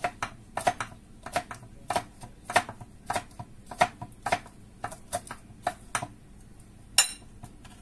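Kitchen knife chopping pineapple into small cubes on a wooden cutting board: a steady run of quick knocks, about two or three a second, for some six seconds. About seven seconds in comes one louder, sharper knock with a short ring.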